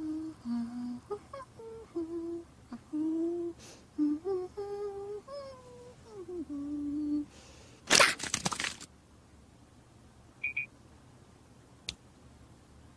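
A child-like cartoon voice humming a short, wandering tune with closed lips, in separate held notes. It stops about seven seconds in and is followed by a brief burst of clicks and rustles.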